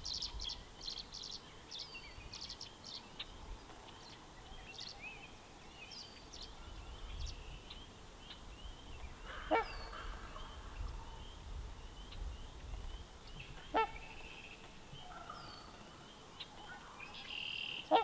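Trumpeter swans honking: three short, loud, horn-like calls, about halfway through, some four seconds later, and again at the end. Small songbirds chirp and trill steadily in the background.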